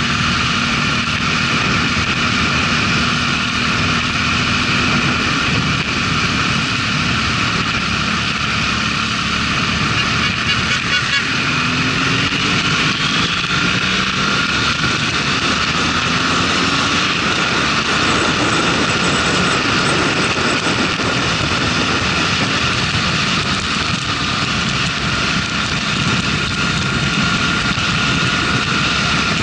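Motorcycle riding, heard from a camera mounted on the bike: steady wind and road noise over the engine. About halfway through, the engine note rises as the bike accelerates and picks up speed.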